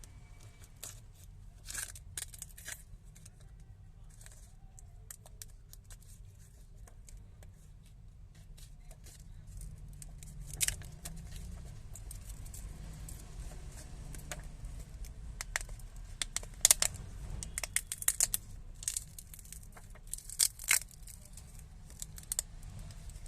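Irregular clicks, taps and tearing crackles from a smartphone and small repair tools being handled, over a low steady hum.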